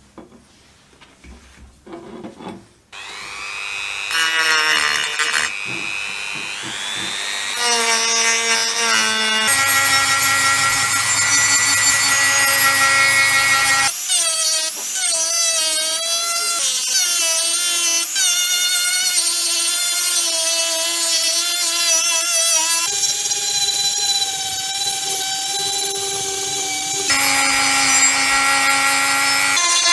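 Handheld rotary tool with a small sanding drum grinding excess weld off a metal figurine's repaired tail. A few light handling knocks come first, then the motor whine rises as it spins up about three seconds in and runs on, wavering in pitch as the drum bears on the metal.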